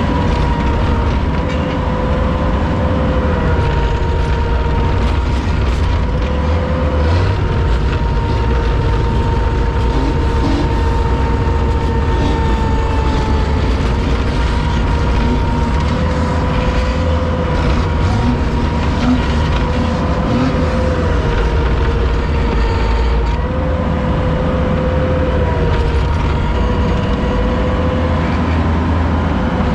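Vehicle engine running hard under load with a low rumble and a steady whine that wavers slightly in pitch, as the vehicle works to get free of deep snow.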